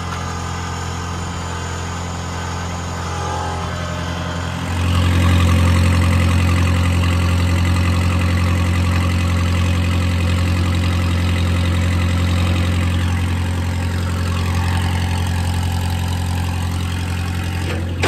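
Small skid steer's Kubota V1100 four-cylinder diesel engine running steadily, then growing louder about five seconds in and holding at that higher level to the end.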